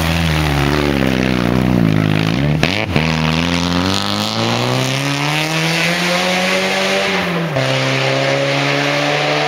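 Volkswagen Golf Mk2 rally car's engine. The note falls as the car slows through a gravel hairpin, with a couple of sharp clicks about two and a half to three seconds in. It then climbs steadily as the car accelerates away and drops suddenly at an upshift about seven and a half seconds in, before rising again.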